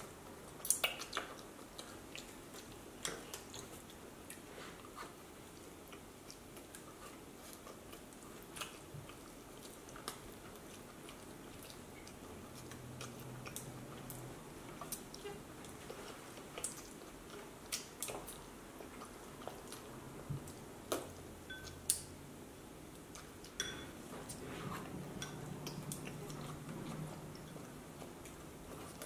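Quiet eating sounds of a child chewing noodles, with scattered sharp clicks of plastic training chopsticks against the bowl.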